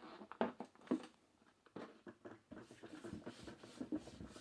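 Tire irons knocking and scraping on the rim while the second bead of a motorcycle front tire is levered over the rim edge: two sharp knocks about half a second apart near the start, then lighter scuffs and clicks.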